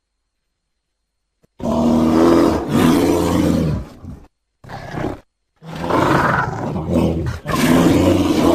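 Bear sound effect built from spectacled bear and black bear recordings: after about a second and a half of silence, loud pitched roaring growls come in three bouts, the middle one short, the last starting about halfway through.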